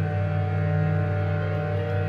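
Calgary Roughnecks goal horn sounding one steady, low-pitched blast, the signal of a goal.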